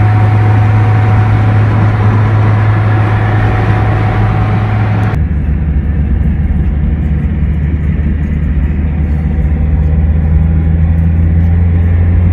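Steady low drone of a car's engine and road noise heard from inside the cabin while driving. About five seconds in the sound changes abruptly, with less hiss and a slightly lower drone.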